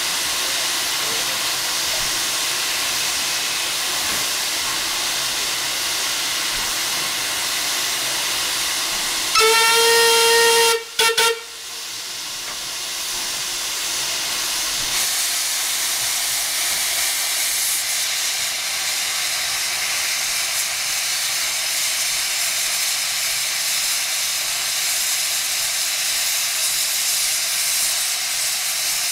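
Steam locomotive W24 'Calbourne', an LSWR O2 class 0-4-4 tank engine, hissing steadily, sounds its whistle in one blast of about a second and a half roughly ten seconds in. The hiss then grows as it starts away with steam pouring from its cylinder drain cocks.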